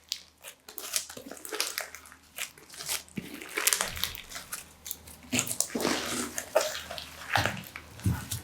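Crunchy slime being squeezed and pressed by hand, giving a stream of irregular crackles and pops mixed with wet, sticky squishes.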